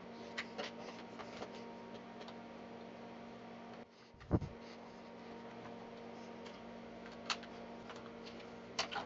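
Light clicks and handling noises of hands working cables and a plastic cable drag chain, with one sharper, louder thump about four seconds in, over a steady low hum.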